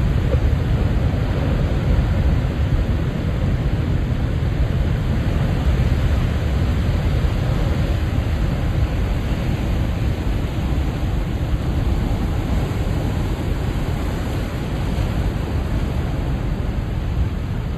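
Ocean surf at high tide: a continuous deep rumble of waves breaking and washing, swelling and easing slightly with no single distinct crash.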